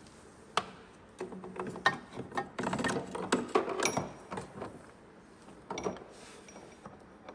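Metal clicks, knocks and rattles of a snowmobile drive chain and hand tools being worked in an open chain case, in irregular bursts that are busiest from about two to four seconds in.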